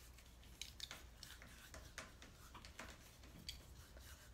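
Faint, irregular soft clicks and squishes of hands rubbing chopped garlic cloves between the palms.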